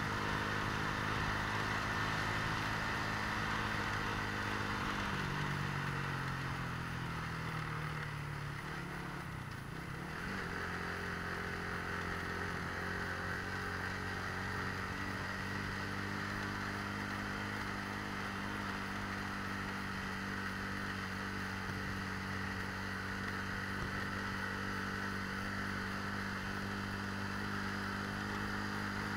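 Motorcycle engine running while being ridden. About five seconds in it eases off and drops in pitch, then picks back up near ten seconds in and holds steady.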